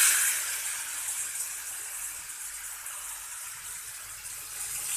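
Water poured into a hot pan of ghee-roasted wheat flour and sugar, sizzling and hissing with steam, loudest at the start and slowly dying down.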